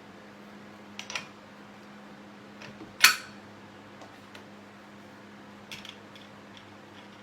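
Hard parts being handled and set down: a few sharp clicks and knocks, the loudest about three seconds in, over a faint low steady hum.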